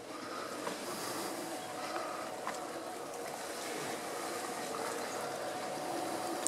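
Steady, soft rushing and trickling of water, with no pauses.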